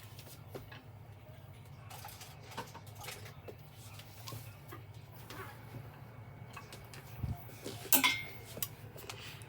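Small items and packaging being handled: scattered light clicks and taps, with a sharp clink about eight seconds in.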